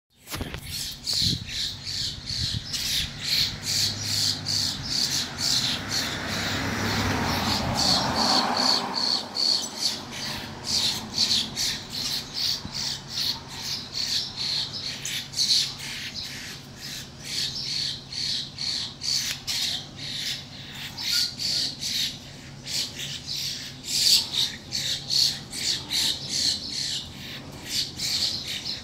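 Birds fighting, giving harsh squawking calls over and over at about two to three a second. A broad rushing noise swells and fades about six to nine seconds in.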